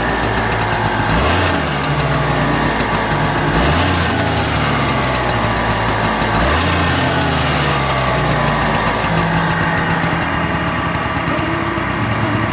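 Honda Lead 100 scooter's small two-stroke engine running at idle, with a few short throttle blips.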